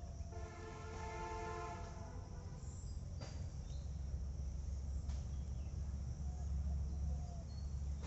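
A distant horn sounds one steady chord of several tones for about a second and a half near the start, over a continuous low rumble.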